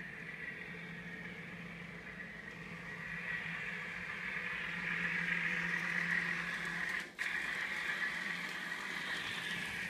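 Sound unit of a Prairie Shadows N scale FPA-4 diesel locomotive playing its engine sound through a tiny onboard speaker, with the train rolling on the track. It grows louder from about three seconds in as the train comes past.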